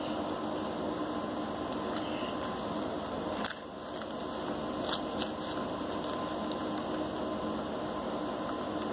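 Steady hiss and hum of room noise, with a few faint clicks and rustles from handling paper money and envelopes, a little after the middle.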